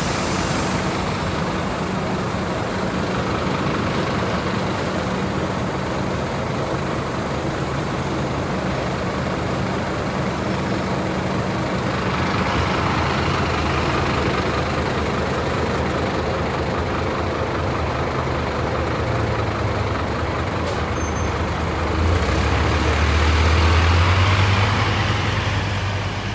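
Scania K270UB city bus's rear-mounted diesel engine running close by, then working harder with a deeper, louder drone about three-quarters of the way through as the bus pulls away.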